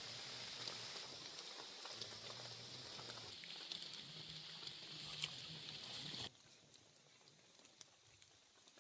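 Steady rain pattering with scattered sharp drips and ticks. About six seconds in it cuts off abruptly, leaving a much quieter background with only occasional faint ticks.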